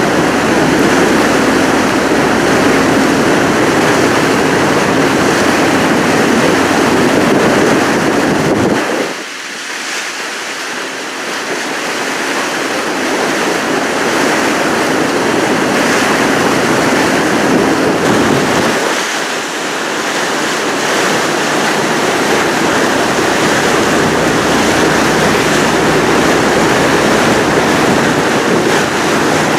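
Loud, steady rushing noise with no clear pitch. The low rumble drops away briefly twice, about nine and nineteen seconds in.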